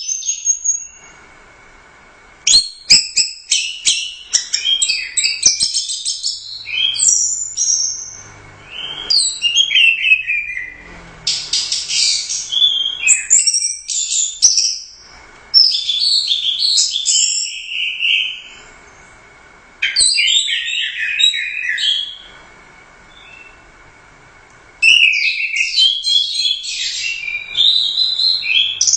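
Orange-headed thrush (anis merah) singing loudly in fast, varied bursts of high, rapidly changing notes, several song bouts broken by pauses of a couple of seconds.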